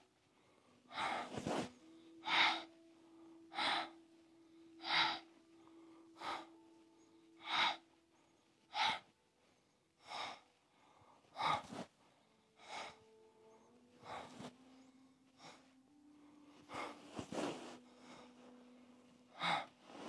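Short, forceful exhales through the mouth, one on each swing of a standing spinal twist, the air squeezed out on each turn. They come evenly, about one every second and a quarter, growing a little softer in the second half.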